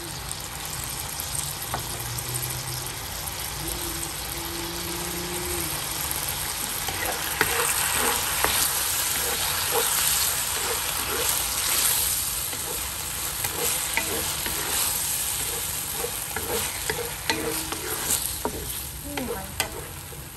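Sweet and sour sauce sizzling in a hot honeycomb-textured stainless steel wok while battered fish fillet pieces, peppers and onion are stirred and tossed with a wooden spatula. From about seven seconds in there are frequent light knocks and scrapes of the spatula against the pan.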